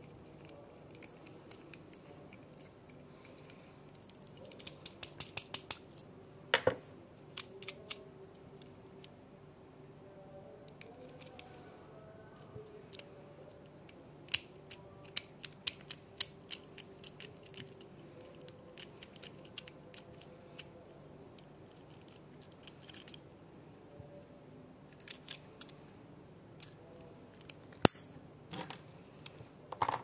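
Irregular light clicks and snips from small hand tools working on a diecast toy car, some in quick clusters, over a faint steady hum.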